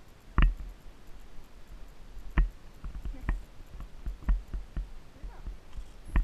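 Irregular knocks and clicks of an Icelandic horse being ridden along a sandy dirt trail, with hoofbeats and the jostle of riding gear. The loudest knocks come about half a second in and again around two and a half seconds in.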